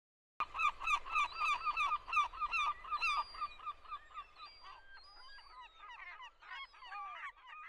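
A flock of birds calling with a rapid run of honking calls, about four a second, which thins out and fades after about three seconds into scattered, fainter calls. It starts abruptly from silence, like a dubbed-in sound effect.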